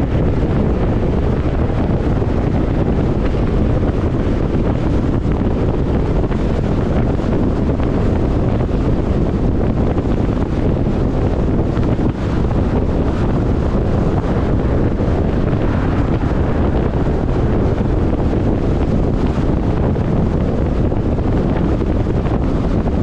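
Steady low rumble of wind and tyre noise from a car cruising at highway speed, with wind buffeting the microphone.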